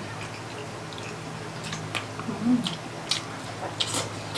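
Person chewing pork ribs close to the microphone: scattered wet mouth clicks and smacks over a steady low hum, with a brief hummed 'mm' about two and a half seconds in.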